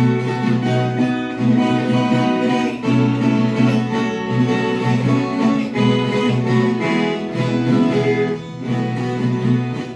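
Instrumental break of a Brazilian caipira song: violas caipiras and guitar playing plucked and strummed melody and chords in a steady rhythm, with no singing.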